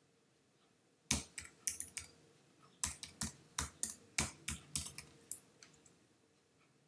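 Computer keyboard typing: a quick run of about fifteen to twenty keystrokes from about a second in to about five and a half seconds in, ending as the command is entered with the Return key.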